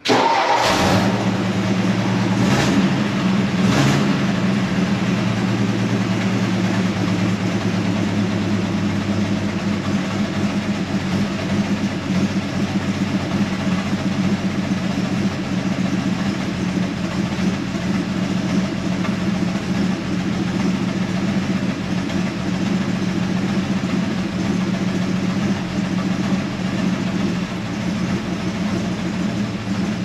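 1962 Ford F-100's inline-six engine idling steadily, with a few sharp clicks in the first four seconds.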